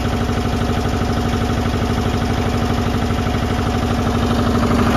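Goldoni 230 compact tractor's air-cooled two-cylinder engine running at a steady idle with an even, rapid pulse, getting a little louder near the end.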